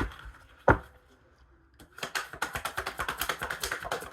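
Two sharp taps of cards on a table, then from about two seconds in a rapid run of clicking as a tarot deck is shuffled.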